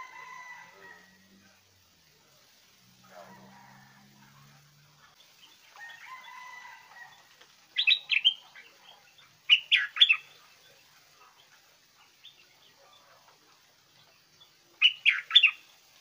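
Caged stripe-throated bulbul singing: three short phrases of rapid, sharp notes, about 8, 10 and 15 seconds in.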